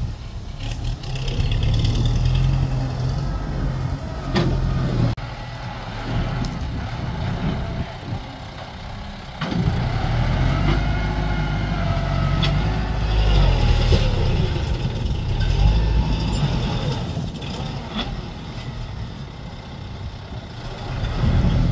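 Farm tractor's diesel engine working under load as it drags a disc plough through brush and bamboo, its pitch rising and falling, with a few sharp cracks along the way.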